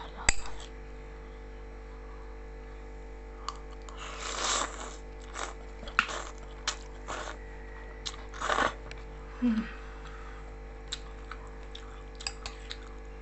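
Close-up eating of black noodles: two slurps, about four and eight and a half seconds in, with chewing and small mouth clicks between them and a sharp click at the start.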